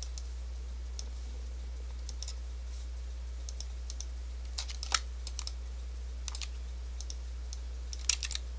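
Scattered, irregular clicks and key taps from a computer mouse and keyboard. One is louder about five seconds in, and a quick run of clicks comes near the end. A steady low hum runs underneath.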